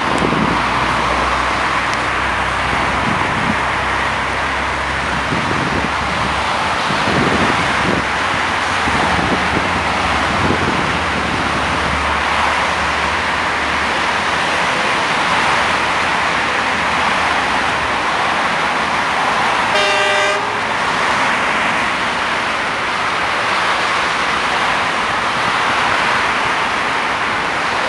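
Steady traffic noise with a low rumble through the first half; about two-thirds of the way in, a China Railway DF4B diesel locomotive's horn blares once, a single blast of about a second.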